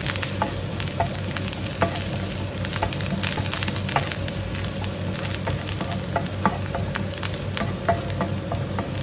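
Sliced shallots and green chilli sizzling in ghee in a nonstick frying pan, a wooden spatula clicking and scraping against the pan at irregular moments as it stirs. A steady low hum runs underneath.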